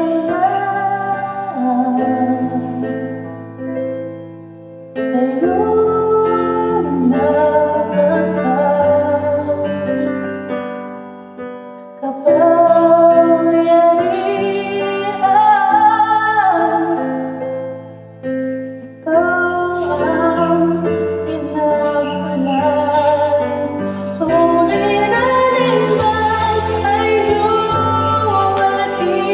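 A man singing a slow worship song in Tagalog over a karaoke backing track of sustained keyboard chords, in long sung phrases with short breaks between them.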